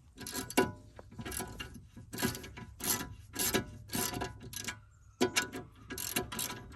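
Socket ratchet wrench clicking in repeated back-and-forth strokes, about two a second, as a size-18 nut on the front strut is loosened. There is a short pause about five seconds in.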